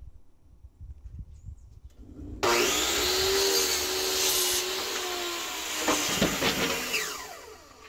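Hitachi sliding compound miter saw switched on about two seconds in, its motor whining steadily as it cuts through a board of stained cabinet paneling. Near the end the motor is released and winds down with a falling pitch.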